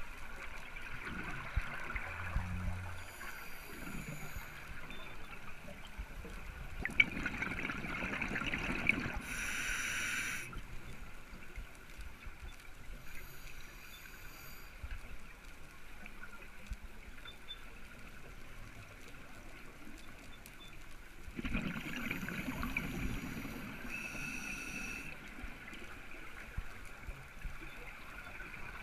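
Scuba regulator breathing heard underwater: hissing inhalations through the demand valve and louder bubbling exhalations, about two full breaths over a steady watery hiss.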